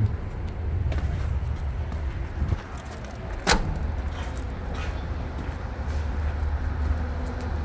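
Hino J08 7.6-litre inline-six diesel idling steadily, with a truck cab door shut once about three and a half seconds in.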